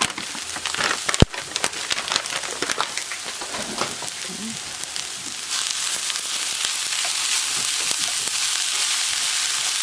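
Vegetable and plant-based chorizo crumbles with onions frying in oil in a pan, sizzling and crackling, with one sharp click about a second in. From about halfway the sizzle turns into a steadier, louder hiss.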